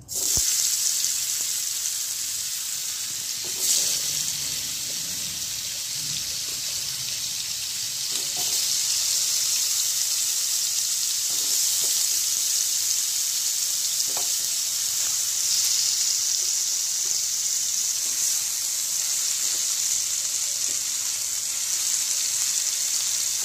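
Spiced paneer cubes sizzling as they fry in hot oil in a kadai: a steady high hiss that starts suddenly as the cubes go into the oil. A few light knocks come through it.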